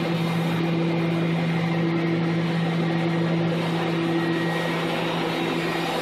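Mazak AJV-25/404 vertical machining center running a cut: a steady hum that holds one pitch over an even rushing hiss of machining and coolant spray.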